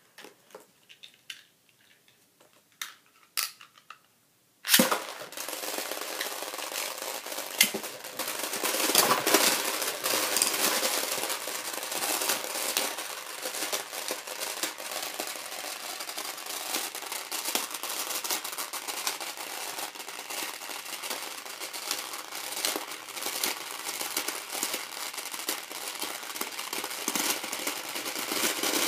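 A few light clicks as Beyblade launchers are readied, then about five seconds in a sharp launch snap as the Tornado Eagle and Variares tops are ripped into a plastic stadium full of small plastic balls. A loud, dense rattling clatter follows as the spinning tops churn through the balls and knock against each other, running on until the battle ends.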